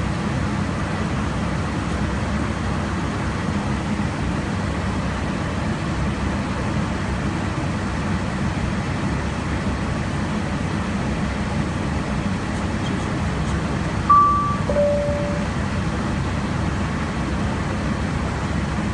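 Steady airliner flight-deck noise in cruise, the airflow and engine drone heard from inside the cockpit. About 14 seconds in, a two-tone high-low chime sounds once, the aircraft's cabin or crew call chime.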